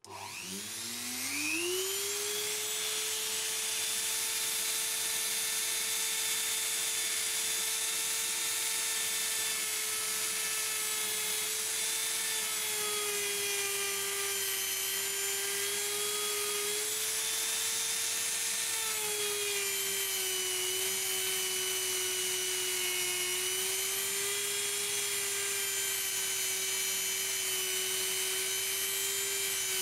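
Mini rotary tool (pin grinder) with a felt buffing wheel spinning up to speed over about two seconds, then running steadily with a high whine while buffing polish onto wood. Its pitch drops slightly twice, about halfway through and again a little later.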